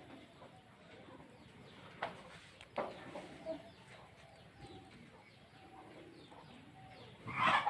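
Birds calling with a few short sharp calls, then a louder call near the end.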